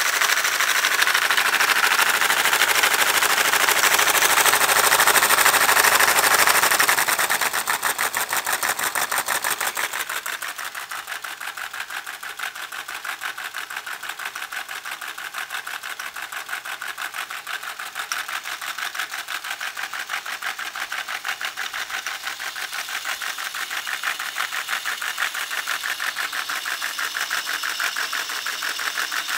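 Motor-driven Lego Technic V-twin model engine running, its plastic pistons and linkages clattering in a fast, even rhythm. It is louder for the first several seconds, then drops to a quieter, steadier clatter from about eight to ten seconds in.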